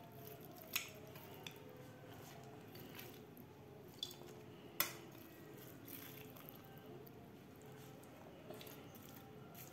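A metal spoon scooping seasoned chicken pieces from a ceramic bowl onto banana leaves: a handful of faint clinks and taps, the sharpest about five seconds in.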